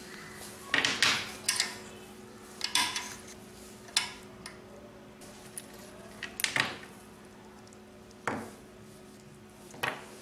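Hands handling speaker wire and small capacitors at a subwoofer's terminals: a scattered series of short clicks, rustles and light knocks, over a faint steady hum.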